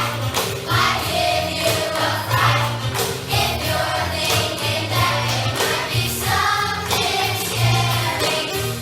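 A choir singing a song over instrumental accompaniment with a steady bass line.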